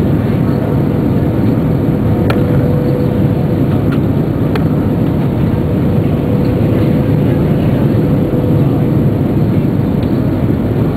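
Steady roar of airflow and IAE V2500 engines heard inside the cabin of an Airbus A320 on approach, with a faint steady hum that comes and goes.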